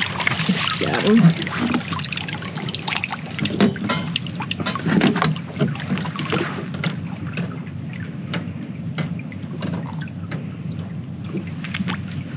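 Water splashing and dribbling around a landing net holding a freshwater drum (sheepshead) at the side of a boat, with many sharp clicks and knocks as the net and fish are handled.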